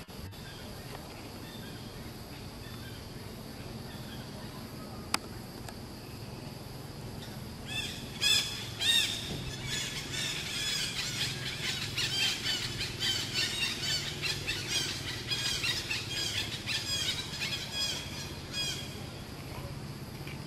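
Young macaque squealing: a fast string of short, high cries that rise and fall in pitch. It starts about eight seconds in, with the two loudest cries first, and keeps going for about ten seconds before stopping.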